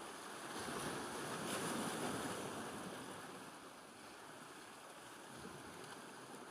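Sea water washing and lapping, swelling for a couple of seconds and then settling to a steady, quieter wash.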